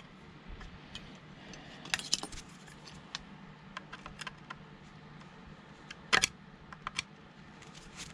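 Light clicks, taps and clinks of small metal parts being handled during a teardown, with a louder clatter about six seconds in.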